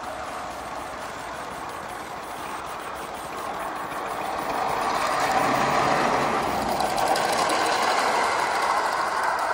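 3.5-inch gauge live steam 4-6-0 Ten Wheeler locomotive running along its track with a rapid, even exhaust beat, growing louder about halfway through as it draws close and passes.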